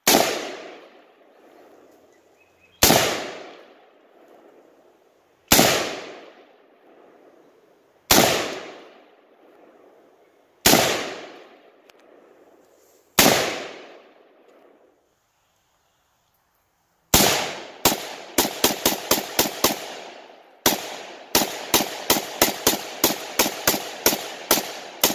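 Rifle gunshots: six single shots a little over two seconds apart, each followed by a long fading echo, then after a short pause rapid semi-automatic fire in two quick strings of several shots a second.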